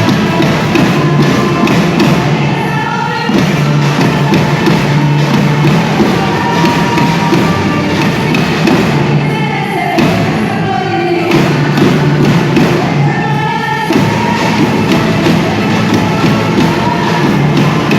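Percussion band playing drums in a steady, driving rhythm, with a pitched melody line over it. The low drums drop out briefly twice.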